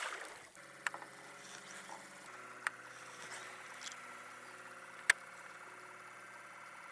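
Splash in the water at the start, then an electric trolling motor humming steadily, shifting to a slightly different pitch about two seconds in. A few sharp clicks cut through, the loudest about five seconds in.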